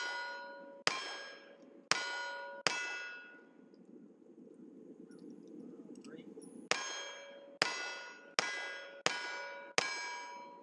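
Rifle shots hitting steel targets, each hit followed by the ringing of the struck plate. Four come in quick succession, then a pause of about four seconds, then five more at under a second apart.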